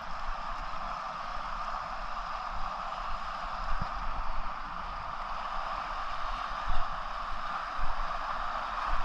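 Fast river current rushing steadily, with a couple of brief thumps about seven and eight seconds in.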